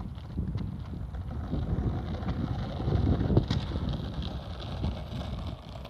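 Wind buffeting the microphone: an uneven low rumble that swells a little around three seconds in.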